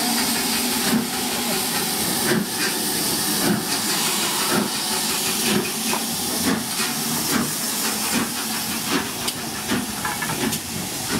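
Steam locomotive LMS Princess Coronation 4-6-2 No. 6233 'Duchess of Sutherland' pulling slowly away: a steady hiss of steam from around the cylinders, with soft beats about once a second that come a little quicker toward the end as it gathers speed.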